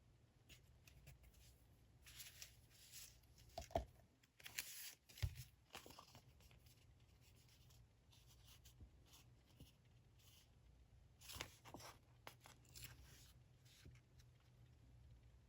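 Quiet desk handling of paper and stationery: soft paper rustles and scratches, with a couple of light knocks against a small room's near-silent background.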